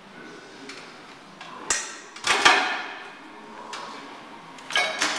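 Metal clanks from a seated calf raise machine: a sharp click, then a loud clank with a ringing tail, and another ringing clank near the end.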